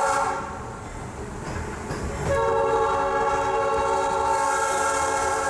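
Diesel locomotive air horn sounding a steady multi-note chord. The first blast cuts off just after the start, and after about two seconds of the train's low running rumble a second long blast begins and holds.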